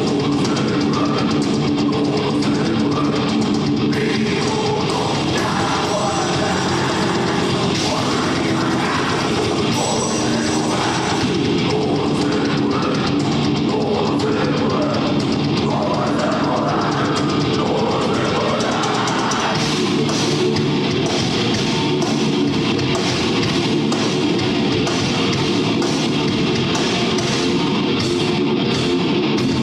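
Heavy metal band playing live: distorted electric guitars and a drum kit, with vocals over them.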